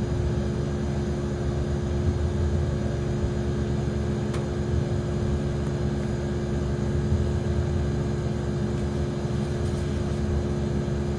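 A steady machine hum at a constant pitch, with one faint click about four seconds in.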